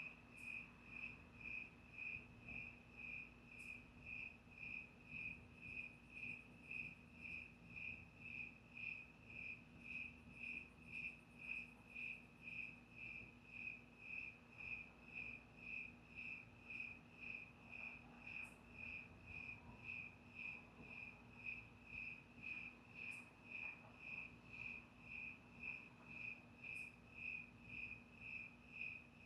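A cricket chirping steadily, an even pulse of short high chirps at about two a second. A faint steady low hum lies underneath.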